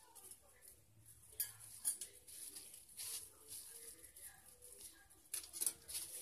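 Scissors snipping and plastic wrap crinkling as the wrapping is cut off boiled sausages in a bowl of water, with a few sharp clicks in two pairs.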